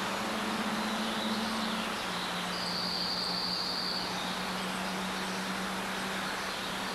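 Steady outdoor background noise: an even hiss with a low hum underneath, and a thin high steady tone for a second or two near the middle.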